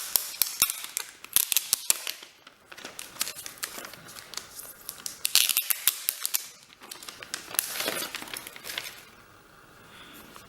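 Hands handling a mini laptop and its box packaging: a run of sharp clicks and taps with bursts of rustling, dying down near the end.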